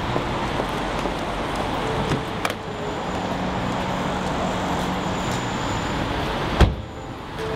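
Steady city street traffic noise, with one solid thud of a Kia estate car's door being slammed shut about six and a half seconds in.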